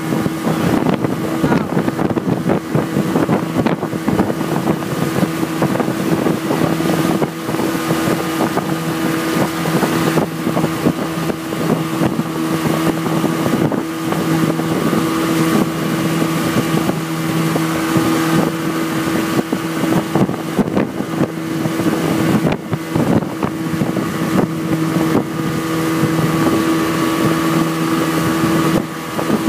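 Motorboat engine running with a steady hum while it tows, over the rush of the churning wake and wind buffeting the microphone.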